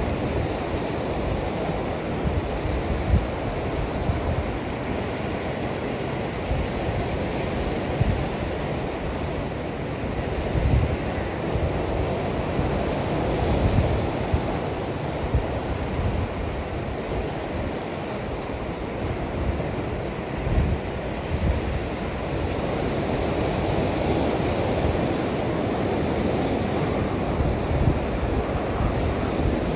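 Ocean surf washing against shoreline rocks, a steady rushing, with gusts of wind buffeting the microphone in low, uneven rumbles.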